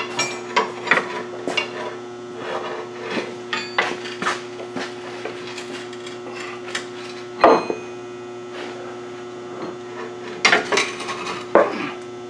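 Scattered metal clinks and knocks of hand tools and suspension parts as the front control arm and axle are worked into place by hand. The loudest knock is about seven and a half seconds in, with a cluster of knocks near the end, all over the steady hum of the shop lights.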